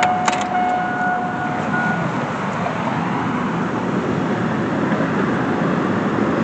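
Ignition switched on in a Chevy Blazer ZR2: a couple of sharp clicks, then a steady warning tone for about two seconds, over a steady background noise. The key is being turned on to prime the electric in-tank fuel pump after a missing fuel pump relay was fitted.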